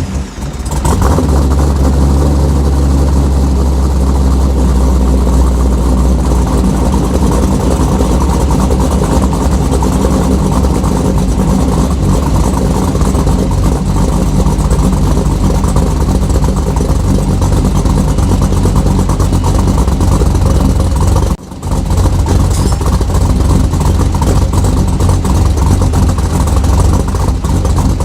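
Pontiac G8 GT's 6.0-litre L76 V8 running steadily just after starting, loud and deep. The sound breaks off briefly about 21 seconds in and picks up again.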